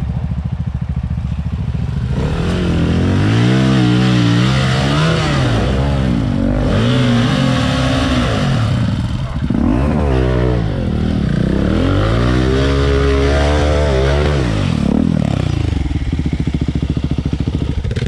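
Enduro dirt bike engine running, low and even at first, then from about two seconds in revved hard again and again, the pitch climbing and falling in repeated swells, before settling back to steadier running near the end.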